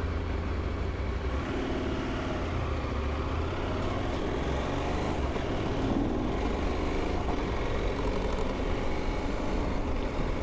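Motorcycle engine running while being ridden, its note rising and falling a few times.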